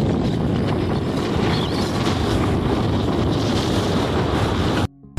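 Wind rushing over the microphone and road noise from a vehicle moving along a paved highway, a steady dense rumble; it drops out briefly near the end.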